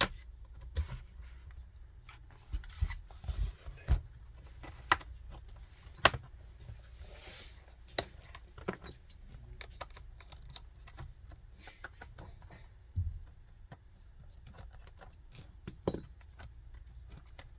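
Scattered sharp plastic clicks and taps as a Dell laptop's bottom cover is pried off with a plastic opening tool, its clips snapping loose, over a faint low hum.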